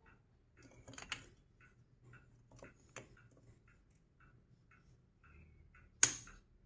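Magnetic toy sticks and balls clicking and snapping together as pieces are handled and fitted, with sharp clicks about a second in, around three seconds, and the loudest one near the end. A faint, regular ticking about three times a second runs underneath.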